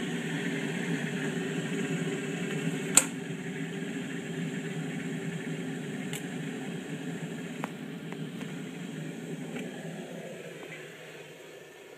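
Electric kettle heating water on its base, a steady rushing rumble that slowly dies away over the last few seconds. A single sharp click about three seconds in, with a few faint ticks after it.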